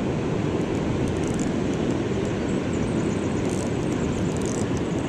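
River rapids rushing steadily over rocks, a constant, even water noise with no breaks.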